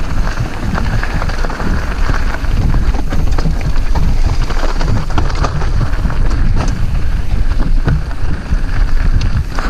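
Wind buffeting the camera microphone as an enduro mountain bike rolls fast down a rocky singletrack, with tyres crunching over gravel and stones and the bike rattling and knocking over the rough ground.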